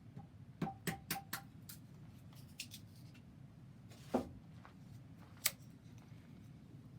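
A handful of sharp clicks and knocks over a steady low hum: a quick run of four clicks about half a second in, a louder knock around four seconds in and a single sharp click a second later.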